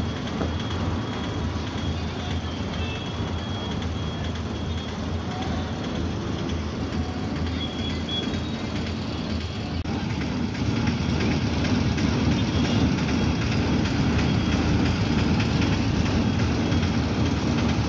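Lorry engine running, heard from inside the cab while the truck waits and crawls in congested road traffic. The engine gets louder about ten and a half seconds in as the truck pulls forward.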